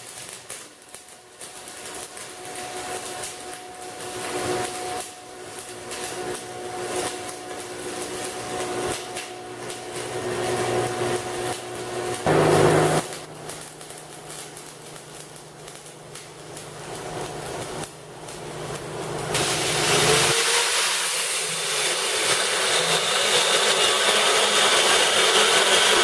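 Electric arc welding on steel, crackling and sputtering unevenly, with a short louder burst about halfway. About twenty seconds in it gives way to an angle grinder grinding steel, a louder steady hiss and whine.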